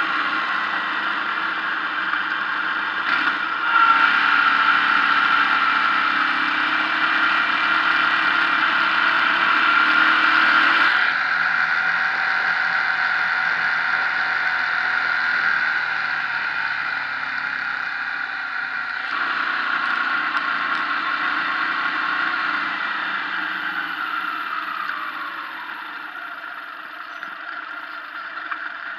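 Motorcycle riding sound: the engine runs steadily under way, mixed with wind rush on the microphone. Near the end the engine note falls as the bike slows.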